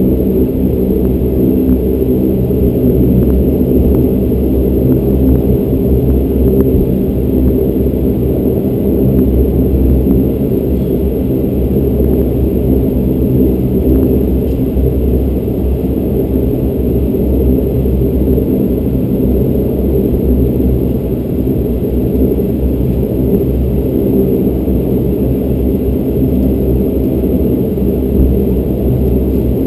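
Bombardier Dash 8 Q400's Pratt & Whitney PW150A turboprop engines and propellers running at taxi power, heard from inside the cabin beside the propeller: a loud, steady drone made of several evenly spaced hum tones over a low rumble.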